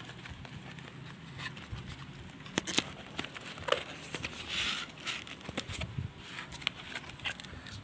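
Hands handling a small cardboard box of bicycle bar tape and taking out the tape roll: scattered taps, clicks and scrapes, with a short rustle a little past halfway.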